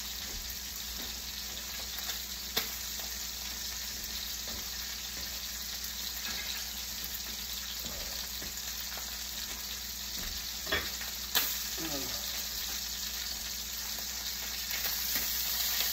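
Steak frying in hot oil in a pan: a steady sizzling hiss, broken by a few sharp clicks.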